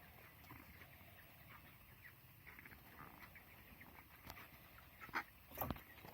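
Broiler chickens in a shed, faint: scattered soft peeps and rustling, with a few sharp knocks about four and five seconds in.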